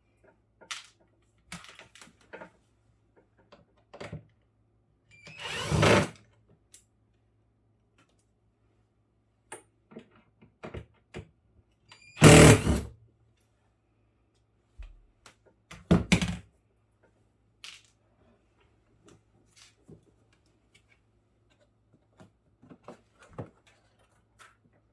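Scattered clicks, taps and knocks of plastic panels and small parts being handled as a refrigerator's interior is taken apart, with louder scraping rustles about five seconds in, again just past the middle (the loudest, under a second long), and a sharper knock shortly after.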